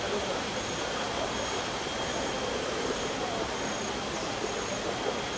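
Steady outdoor background noise, an even hiss, with faint voices of people in the distance and a thin, high, steady tone above it.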